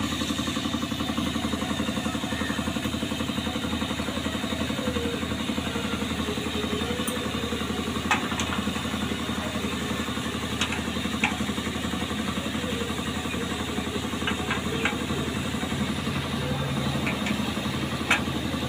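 An engine idling steadily, with a few sharp metallic clinks of a spanner working the radiator mounting bolts.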